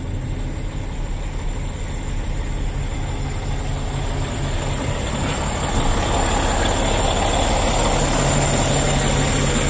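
Caterpillar C13 inline-six diesel of a Sterling L9500 dump truck idling steadily, heard from inside the cab; it gets somewhat louder about six seconds in.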